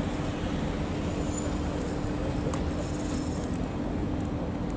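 Steady low hum of an idling engine, with rumbling noise underneath.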